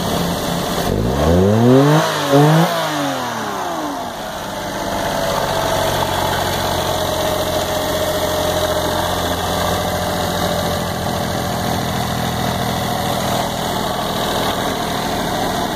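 Daihatsu Mira's small three-cylinder petrol engine revved twice in quick succession about a second in, then dropping back to a steady idle.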